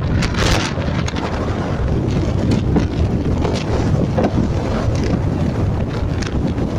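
Strong gusting wind buffeting the microphone in a loud, continuous rumble, with waves breaking on the shore beneath it.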